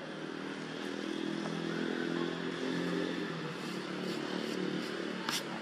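Engine of a passing vehicle: a steady hum that swells through the middle and fades toward the end. A couple of sharp clicks near the end.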